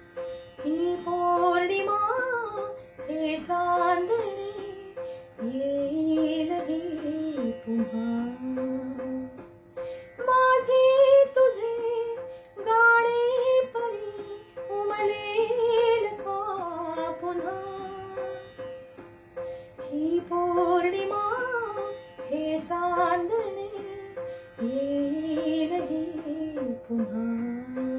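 A woman singing a Marathi song in long, gliding phrases, over instrumental accompaniment with a steady held tone underneath.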